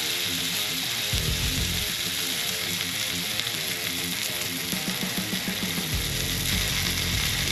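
Sesame-crusted fish loins sizzling steadily in hot oil in a cast-iron skillet, with background music underneath.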